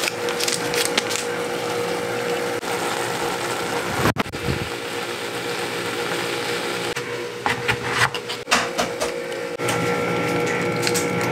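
A steady machine-like hum from a kitchen appliance, with metal chopsticks clicking and scraping against a thin aluminium pot as instant noodles are stirred, in clusters later on.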